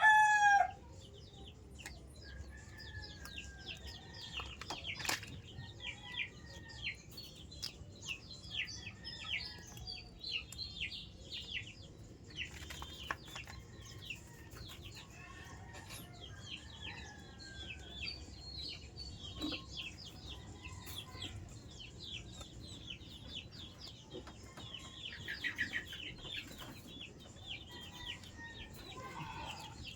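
The tail of a loud rooster crow ends about half a second in. Then come many short, falling chirps and clucks from chickens and other small birds, scattered throughout over a low background hum.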